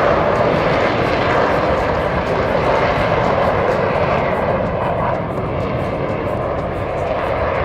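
Aermacchi MB-339 jet trainers' turbojet engines at takeoff power, a loud, steady jet noise as the aircraft accelerate and climb away after their takeoff roll.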